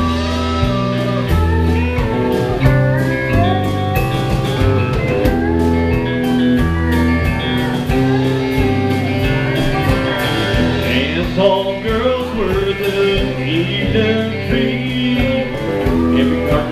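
Live country band playing an instrumental passage: electric guitars over bass and drum kit, with a steel guitar sliding between notes around the middle.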